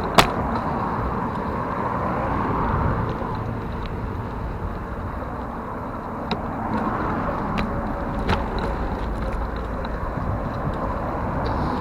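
Steady rushing road noise from a moving bicycle ride, with a few short sharp clicks.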